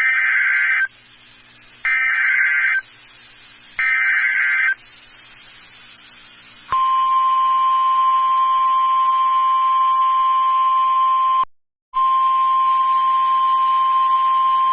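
Emergency Alert System SAME header: three short bursts of warbling data tones, each about a second long and repeated about every two seconds. After a pause comes a single steady alert tone, the NOAA Weather Radio 1050 Hz warning alarm tone, which drops out briefly about two-thirds of the way through. Together they signal the start of a new warning broadcast, here a flash flood warning.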